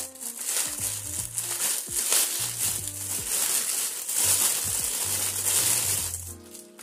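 Clear plastic packaging bag crinkling and rustling in the hands as it is handled and pulled open around a power cord.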